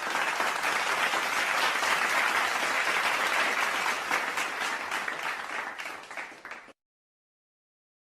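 Crowd applause sound effect: a dense wash of many hands clapping that cuts off suddenly near the end.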